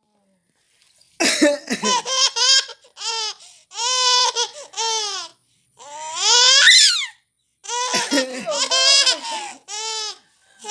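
A baby laughing in repeated high-pitched bursts, with one long rising squeal near the middle, set off by a person's coughing; coughs are mixed in among the laughs.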